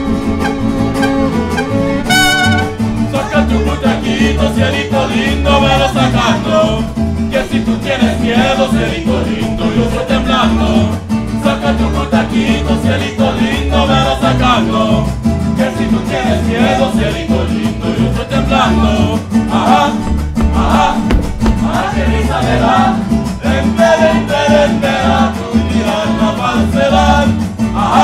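Mariachi band playing live: violins carry a phrase at first, then a man sings in Spanish over strummed guitars and a steady bass pulse from about three seconds in.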